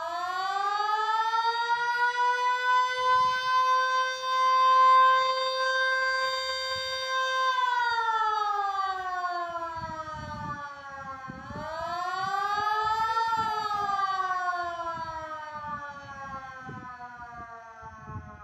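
Outdoor warning siren wailing: it winds up to a steady tone and holds it for several seconds, then drops in pitch, rises again about twelve seconds in and winds down. The rising and falling pattern matches an attack signal. Low thumps underneath in the second half.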